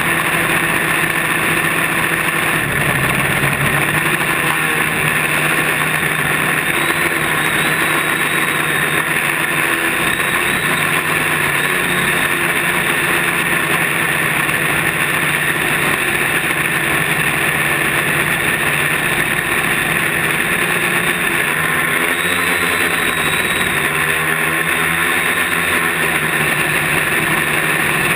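Quadcopter's electric motors and propellers whining steadily, heard close up from the camera mounted on the craft. The pitch shifts slightly now and then as the craft manoeuvres.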